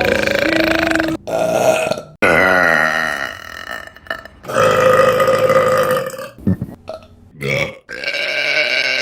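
Women burping, one loud burp after another with abrupt cuts between them: most are long, drawn-out burps of one to two seconds, with two short ones midway.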